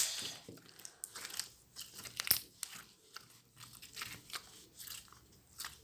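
Slime being stretched and squeezed by hand, giving off irregular small clicks and crackles.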